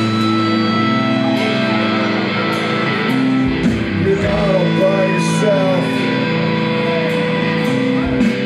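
Punk rock band playing live: electric guitar chords ring over drums and cymbals, and a singing voice comes in about halfway.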